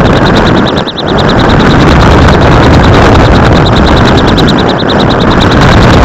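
Loud wind rushing and buffeting over the microphone of a rocket's onboard camera during descent. Underneath runs a fast, high-pitched pulsing beep, about nine pulses a second.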